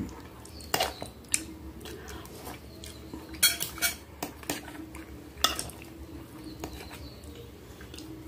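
Metal fork and spoon clinking and scraping against a glass baking dish while scooping up ravioli in white sauce, in irregular sharp clinks with a small cluster about halfway through.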